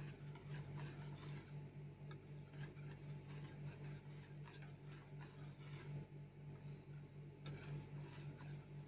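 Spoon stirring a cornstarch and coconut milk mixture in a bowl, giving light, irregular clicks and taps against the bowl as the starch is worked in until dissolved. A steady low hum runs underneath.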